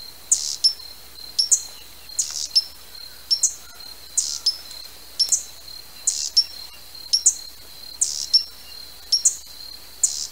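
Hummingbird calling: short, sharp, high chips about once a second, some in quick pairs. A steady thin high tone runs underneath.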